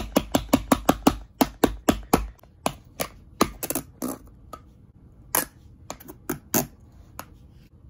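Rapid hard plastic clacks as a white wall-charger plug is banged again and again onto a Samsung slide phone. The strikes come about five a second at first, then thin out into scattered knocks after about two seconds, the last near the end.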